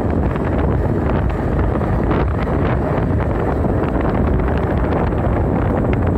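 Heavy, steady wind roar on the microphone from riding an e-bike at about 30 mph.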